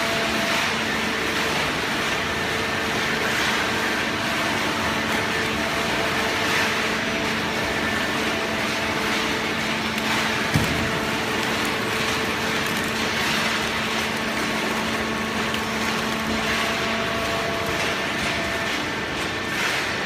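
Horizontal hydraulic cardboard baler running: the hydraulic pump and motor give a steady drone with a constant hum under a noisy rush, and a single short knock comes about halfway through.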